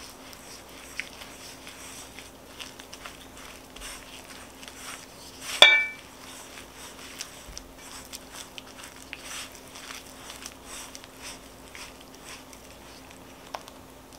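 Wooden spoon stirring a thick flour-and-buttermilk batter in a mixing bowl, with soft scrapes and light knocks against the bowl. About five and a half seconds in, one sharp clink against the bowl rings briefly. A faint steady hum runs underneath.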